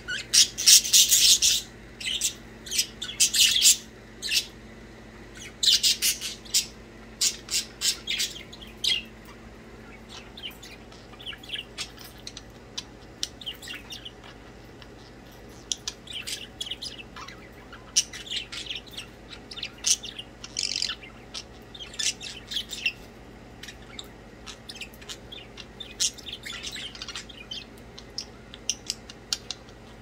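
Budgerigars chirping and squawking: loud, sharp calls in clusters for the first nine seconds or so, then softer, scattered chatter for the rest.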